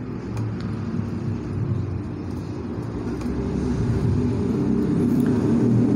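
Low rumble of a motor vehicle's engine, growing louder toward the end.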